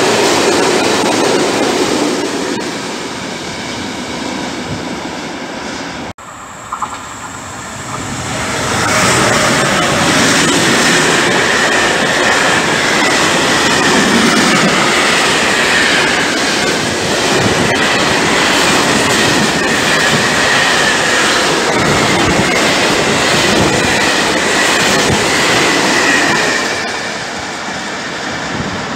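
Freight train of covered hopper wagons passing close by, wheels clattering over the rail joints. The sound breaks off about six seconds in and picks up again with another string of hopper wagons, a steady high squeal running through most of it before it fades a little near the end.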